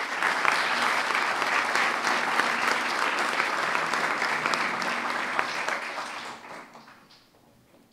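Applause from a roomful of people, many hands clapping steadily, then dying away near the end.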